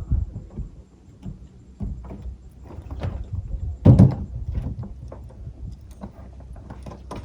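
Irregular knocks and thumps of boats being moved and bumped, over a low rumble; the loudest thump comes about four seconds in.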